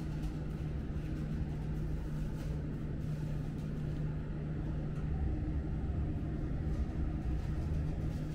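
Steady low machine hum with one even droning tone, and a few faint light taps.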